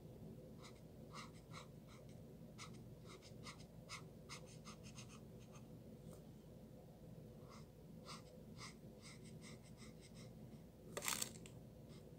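Felt tip of an alcohol-based Touch twin marker rubbing on paper in many short, quick strokes while colouring in, faint over a low steady hum. A brief louder hiss near the end.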